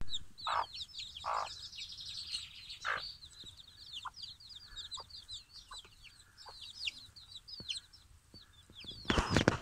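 Wyandotte chicks peeping continuously in quick, high, falling chirps. Their mother hen clucks low several times, most strongly in the first three seconds. Near the end there is a loud scuffling noise.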